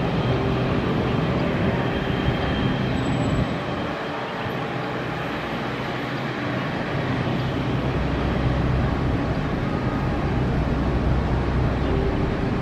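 Twin jet engines of an Emirates Boeing 777 running at taxi power as the airliner rolls slowly onto the runway: a steady jet noise with a low rumble that grows stronger about seven seconds in.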